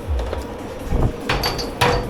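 Dishes and cutlery clattering in a commercial kitchen dish pit, with a couple of sharp ringing clinks in the second half, over background music with a steady beat.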